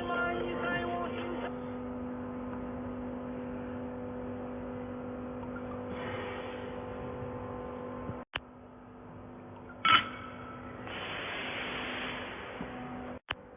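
1.5 kW fiber laser welding machine humming steadily, with a brief sharp burst of noise about ten seconds in and a hiss lasting nearly two seconds near the end.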